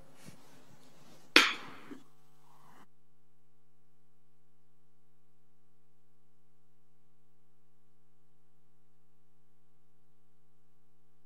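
A sharp click a little over a second in, then from about three seconds a steady electrical hum made of several low tones.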